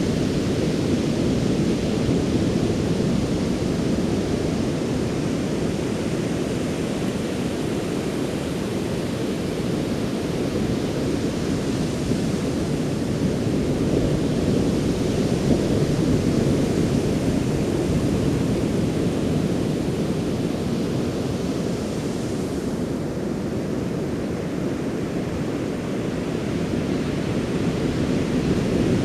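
Ocean surf breaking on a beach, a continuous low rush that swells slightly and eases again.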